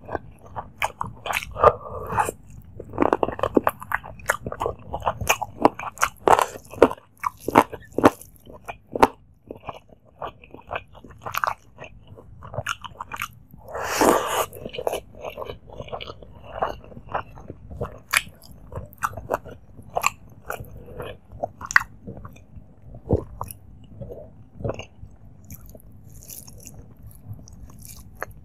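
Close-miked mouth sounds of eating chicken curry and rice by hand: steady chewing with many short, wet smacks and clicks. One louder, longer burst about halfway through, as a handful goes into the mouth.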